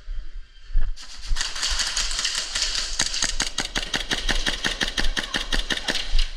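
Airsoft gun firing a rapid string of shots, sharp clicks about seven a second for roughly three seconds, over a steady hiss that starts about a second in.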